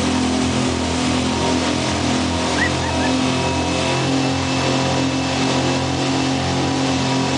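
Motorboat engine running steadily at towing speed, heard from on board, over the rush of the boat's wake and spray.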